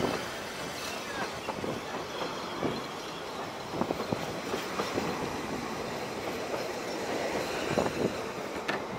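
Narrow-gauge railway passenger carriages rolling past at close range: a steady rumble of wheels on track with irregular clicks and clacks as the wheels cross rail joints.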